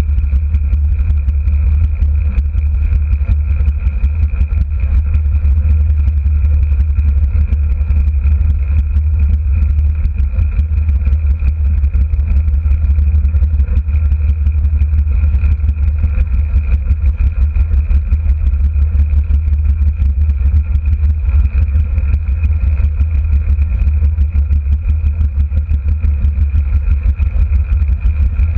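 Steady heavy wind rumble and tyre roll from a camera vehicle moving at constant speed on a wooden velodrome track, with a constant high whine throughout.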